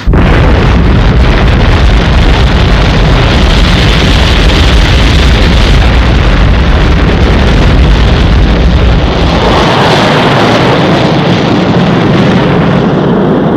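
Thunderbird 1's rocket engine firing at launch: a loud, steady rocket roar that loses some of its deep rumble about ten seconds in.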